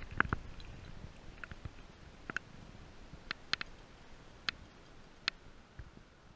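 About ten sharp, irregular clicks and ticks over a faint low rumble that dies away after the first second.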